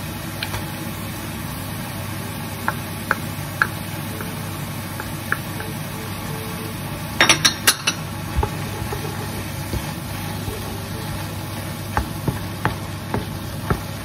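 Pork and courgette mixture sizzling in an enamel frying pan over a steady low hum, with a wooden spoon tapping and scraping against the pan and crème fraîche tub. There are scattered single taps, a quick run of louder taps about seven seconds in, and stirring knocks near the end.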